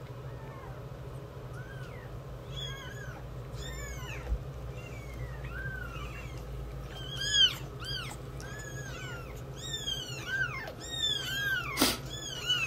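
Very young kittens mewing: short, high cries that rise and fall in pitch. They are sparse at first, then come in quick succession and louder from about two seconds in. A single sharp click sounds near the end.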